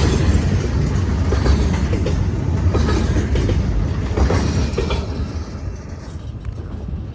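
Freight train of empty flatcars rolling past, with a heavy rumble and the wheels clattering over the rail joints, growing fainter over the last couple of seconds.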